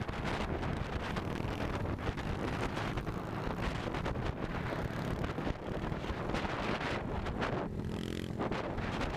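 Heavy wind buffeting the microphone of a motorcycle at speed, over engine and road noise. Near the end the wind briefly eases and a steady engine note comes through for under a second.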